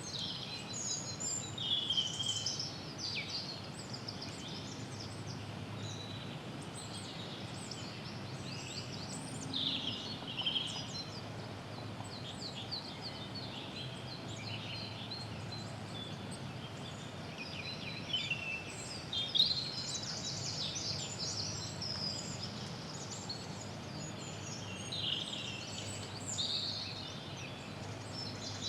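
Several songbirds singing and calling in early-spring woodland, phrases overlapping throughout, over a steady low background hiss.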